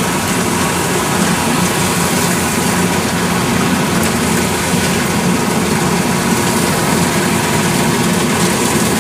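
Kubota DC108X combine harvester's diesel engine running steadily under load as the machine cuts rice, a constant even hum with no changes in pace.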